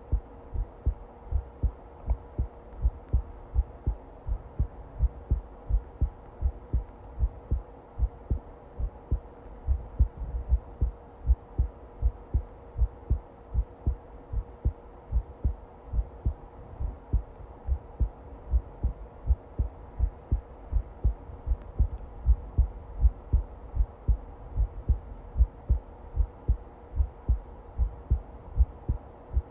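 Heartbeat: regular low thumps, a little over two a second, with a faint steady hum underneath.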